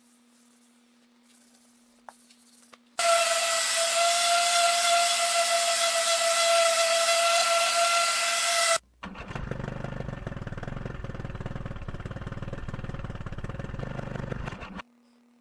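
A power tool runs with a high, steady whine for about six seconds and cuts off suddenly; then a rougher, lower tool noise, as of wood being cut or sanded, runs for about six seconds more and stops suddenly.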